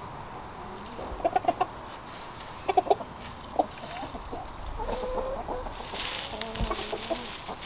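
Chickens clucking in short clusters of quick notes, then softer, lower murmuring clucks. From about six seconds in a rustling hiss joins them as the flock scratches in a pile of dry leaves.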